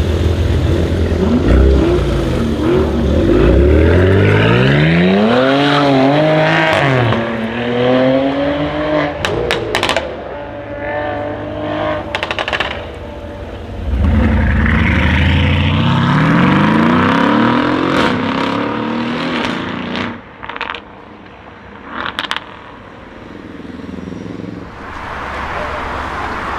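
Brabus-modified Mercedes-AMG GLE43's twin-turbo V6 accelerating hard twice, its note climbing in pitch through the gears. Each pull ends with a string of sharp, loud exhaust crackles and pops as the throttle closes.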